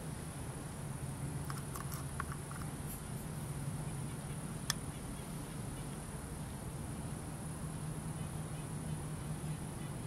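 Steady background hum with a constant high-pitched buzz, a few faint ticks, and one sharp click about halfway through.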